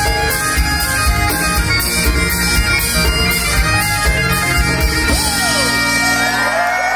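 Highland bagpipes playing a tune over a full band with drums, accordion and acoustic guitar. The band stops about two thirds of the way through, leaving the pipe drones sounding alone, while the crowd starts whooping and cheering near the end.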